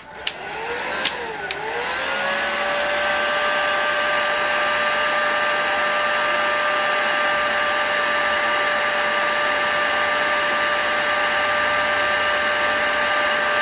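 Electric heat gun running, warming the connecting-rod screws: a few clicks and its fan whine spinning up in the first two seconds, then a steady whine over a rush of air.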